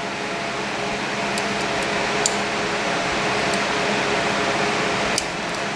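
Steady ventilation hum with a few faint, scattered clicks of a lock pick working the wafers of a letterbox lock.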